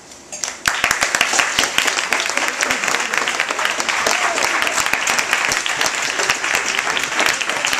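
Audience applauding. The clapping breaks out about half a second in, swells to full within a moment, and carries on as dense, steady applause.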